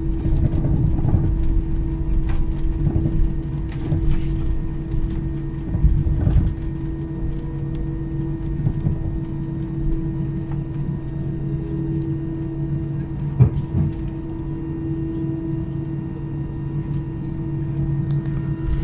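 Airliner cabin noise while taxiing: a steady drone of the jet engines and cabin air with a low rumble. A sharp knock comes about thirteen seconds in.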